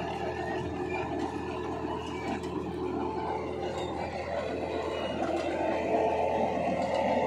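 Tractor engine running steadily as it tows a brick-making machine, its mould wheel turning and laying bricks; a little louder about six seconds in.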